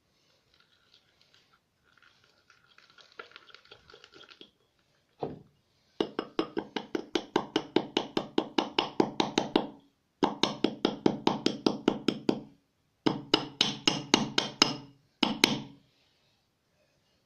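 A stick stirring thick slime dough in a bowl, with rapid rhythmic squeaking strokes of about five a second in three bouts, the mixture starting to come together.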